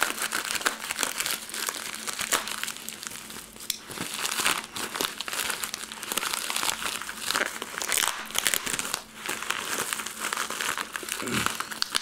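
Plastic bubble mailer crinkling and crackling continuously as hands tear it open and pull out the bubble-wrapped contents.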